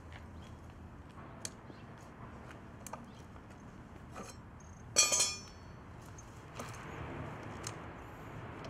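Light clicks and handling noises from a two-stroke dirt bike being readied for a cold start, with one sharp metallic clink that rings briefly about five seconds in; the engine is not yet running.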